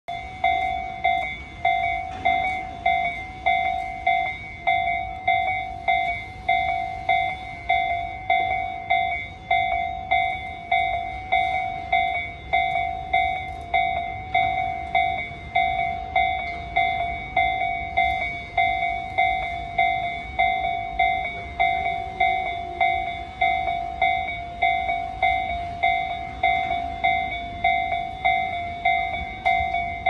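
Japanese railway level-crossing warning bell ringing, an electronic ding repeating evenly a little over once a second, the signal that a train is coming through the crossing.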